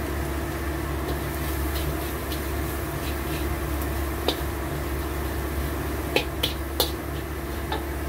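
Metal spatula scraping and clinking against a steel wok while fried shallots, garlic and seasoning powder are stirred, with a handful of sharp clinks in the second half, over a steady low hum.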